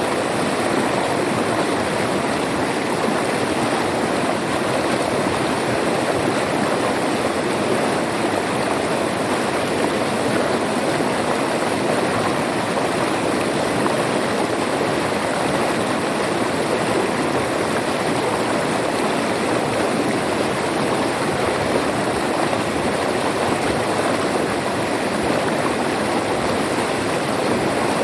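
River water flowing steadily over rocks, an even, unbroken rushing.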